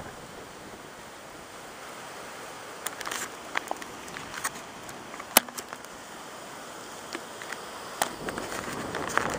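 Strong hurricane wind blowing over the microphone. From about three seconds in come scattered sharp clicks and taps, the loudest a little past halfway.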